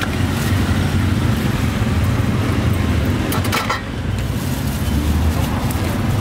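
Steady low rumble of street traffic and engines, with a couple of brief clatters a little past the middle.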